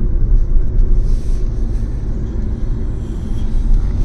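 Cabin noise of an MG Hector SUV moving at highway speed: a loud, steady low rumble of road and engine noise.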